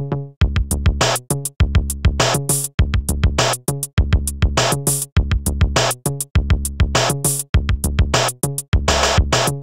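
Synthesized tracker-style electronic music: a fast, even drum-machine beat over a short looping bass and chord pattern.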